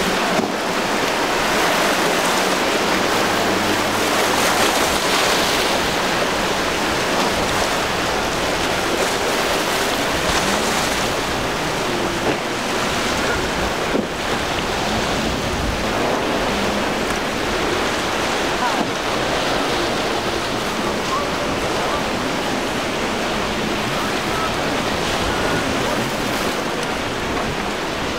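Rough surf and churning water breaking steadily, with wind gusting on the microphone.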